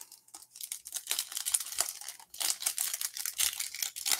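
Foil trading-card pack wrapper being torn open and crinkled in the hands: a continuous run of short, crisp crackles.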